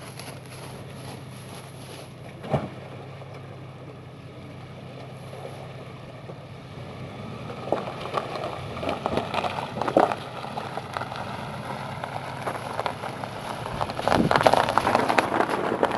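Ford Explorer SUV driving slowly through a creek, its engine running at a steady low hum. There is one sharp knock about two and a half seconds in. From about halfway through, water splashes and sloshes against the vehicle in irregular surges, loudest near the end.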